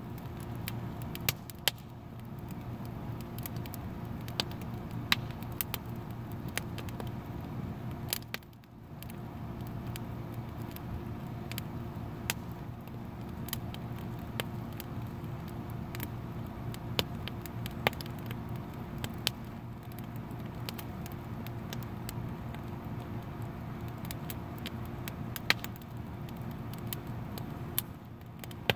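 Wood fire of sticks and branches crackling, with irregular sharp pops, over a steady low hum.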